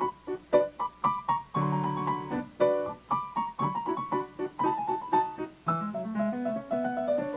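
Piano music playing quick, separate notes and chords.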